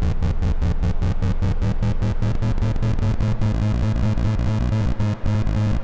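SOMA Lyra-8 analog drone synthesizer playing a low drone pulsed by its Hyper-LFO, with about six regular pulses a second. About three seconds in the pulsing thins out and the drone turns steadier.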